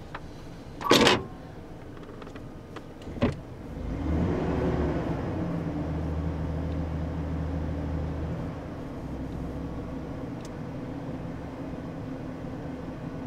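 Pickup truck engine heard from inside the cab as the truck backs up in reverse: a steady low hum that rises about four seconds in, holds, then eases back a little after about eight seconds. Two sharp clicks near the start.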